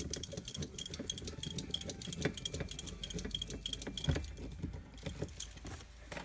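A series of small, sharp metallic clicks and light rattles, several a second, from metal parts or tools being handled.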